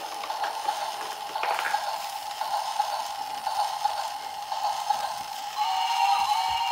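Small electric motor and plastic gears of a battery-powered toy train running with a steady whine as it drives along a wooden track. Near the end it grows louder and higher tones join in.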